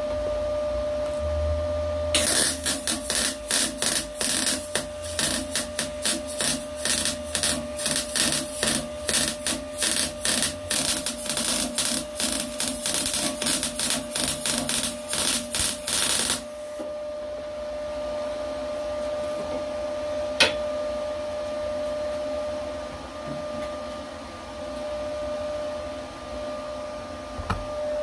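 MIG welder crackling in a long run of short, stop-start bursts for about fourteen seconds as an exhaust pipe is welded onto a stainless sports catalytic converter. A steady hum runs underneath throughout, and there is a single sharp click later on.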